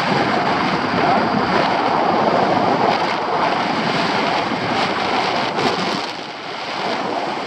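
Airflow rushing over the camera microphone of a paraglider in flight, a loud steady rush with a few faint knocks. It eases briefly about six seconds in.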